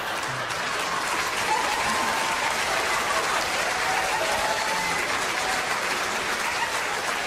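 Theatre audience applauding steadily, with a few faint voices or calls heard through the clapping.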